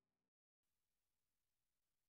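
Near silence: digital silence between two pieces of music.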